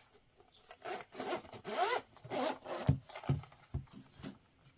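Hands handling a zippered hard-shell pouch: a few rasping rubs and slides over its surface and zipper, then three or four low, dull knocks as the case is set down and tapped against the work mat.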